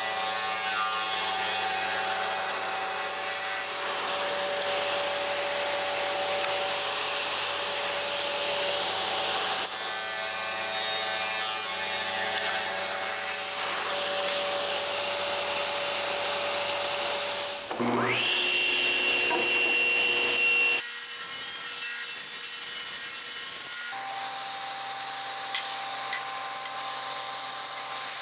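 Table saw running and ripping wood, making several passes to cut out a moulding profile, with abrupt changes in the sound between passes. About two-thirds of the way through, the saw starts up with a rising whine.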